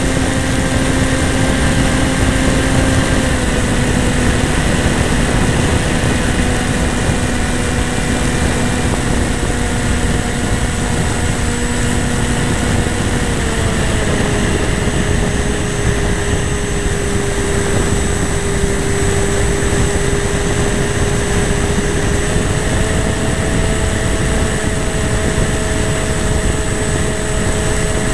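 Radio-controlled FPV model airplane's motor and propeller whining steadily over loud wind rush on the onboard camera. The pitch drops slightly about three seconds in, drops again about halfway through, then rises a little later on as the throttle changes.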